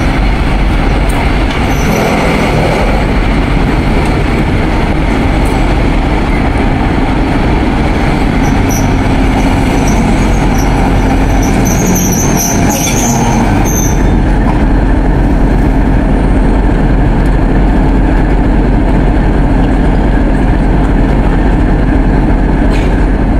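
TEP70 diesel locomotive's V16 engine running loudly as the locomotive creeps along at low speed, with brief high metallic squeals about midway through.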